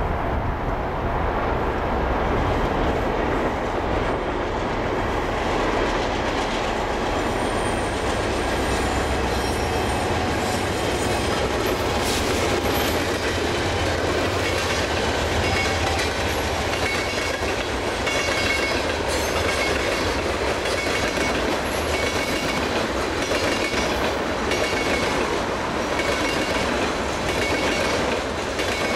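A BNSF freight train passing close by. A diesel locomotive's low engine rumble is strongest for the first several seconds. Then the freight cars roll past with a regular clickety-clack of wheels over rail joints and a high wheel squeal.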